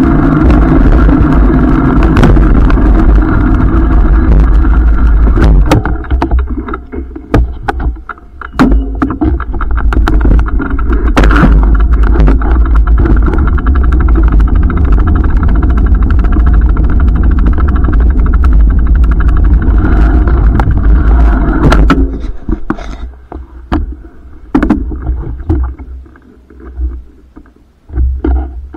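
Wind buffeting the microphone of a camera riding on a moving bicycle: a loud steady rumble with scattered rattles and knocks from bumps. A little over 20 seconds in, the rumble drops off and becomes patchy, with separate knocks, as the bike slows to a stop.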